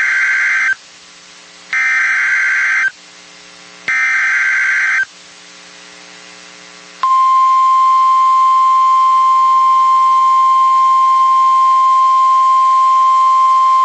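NOAA Weather Radio Emergency Alert System signal: three short bursts of SAME header data, each about a second long and buzzy, then about seven seconds in the steady 1050 Hz weather radio warning alarm tone, here announcing a tornado warning.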